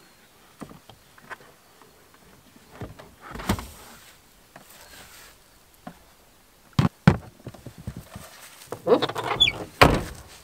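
Handling knocks of a portable power station being lifted out of a car and set down on a plastic storage crate lid: light rustles, two sharp knocks, then a clatter with a brief squeak ending in a loud thump.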